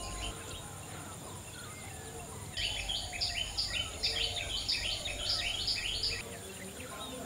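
Outdoor birdsong over a steady high insect drone. From about two and a half seconds in, one animal gives a loud, evenly repeated chirping call, about three notes a second for some three and a half seconds, then stops.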